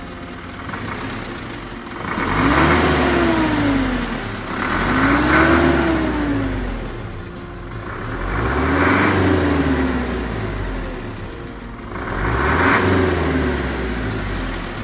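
Isuzu Elf truck's engine idling and revved four times, each rev rising and then falling back in pitch over about two seconds.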